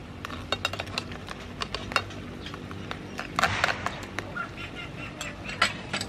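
Metal spoon clinking against a small bowl as sauce is spooned out: a scattered series of sharp clinks, with a short scrape about three and a half seconds in.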